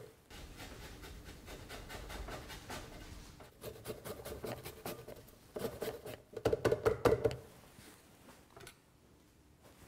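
Lemon rind being zested on a fine grater over the blender jar, with quick scraping strokes in two spells, the second louder and stopping about seven seconds in.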